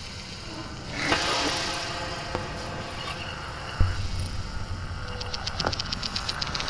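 Experimental electroacoustic sound collage of noisy, mechanical-sounding textures: a swell of hiss about a second in, a sharp knock followed by a low hum a little before halfway, and rapid ticking near the end.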